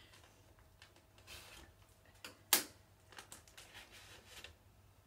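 Light clicks and rustling of a plastic bag as wooden pencils are pulled out of a water-filled Ziploc bag and set down on a plastic tray, with one sharper click about two and a half seconds in.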